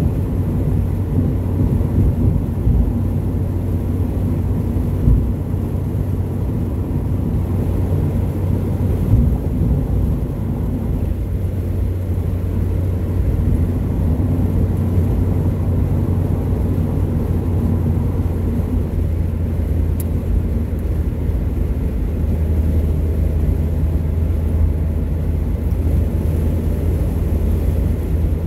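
Car driving along a road, heard from inside the cabin: a steady low rumble of engine and road noise, with two brief bumps about five and nine seconds in.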